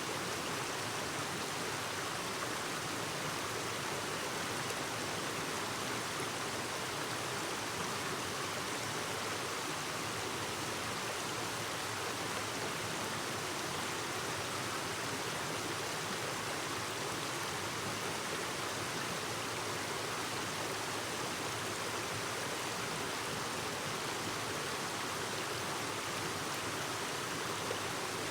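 Clear mountain stream babbling steadily over rocks, a constant rush of water.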